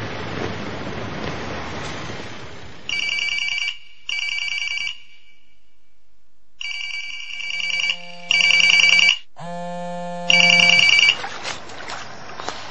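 Electronic telephone ringer trilling in double rings: two short rings, a pause, then two more, starting about three seconds in and stopping about eleven seconds in. A lower buzzing tone sounds briefly between the last rings. An even background hiss comes before the rings and returns after them.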